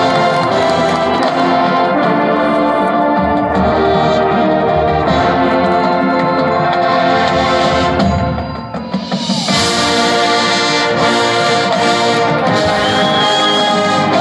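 High school marching band playing, led by brass holding full chords. About eight seconds in it briefly drops back with a note sliding down, then the full band comes back in brighter.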